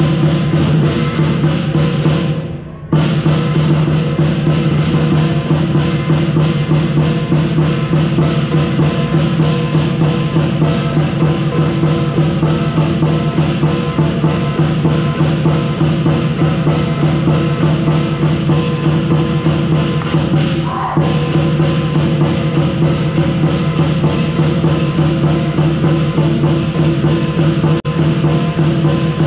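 Lion dance percussion: a large Chinese drum beaten in a fast, steady rhythm over the ringing of cymbals and gong, with a brief break about three seconds in.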